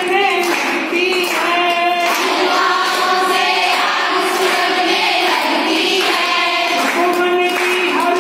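A group of women singing a song together in unison, with held and gliding notes.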